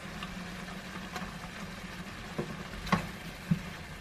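Curry simmering in a frying pan on a gas hob, a steady hiss over a constant low hum. In the second half come three short, sharp knocks against the pan as the eggs are coated with a wooden spoon, the loudest about three seconds in.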